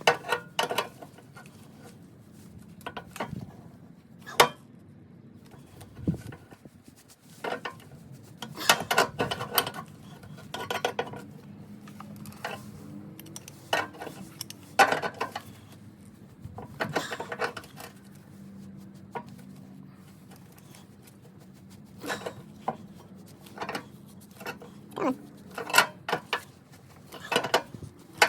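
Irregular metallic clinks and clanks of steel hand tools and mower parts being handled and knocked together, some in quick clusters, over a faint steady low hum.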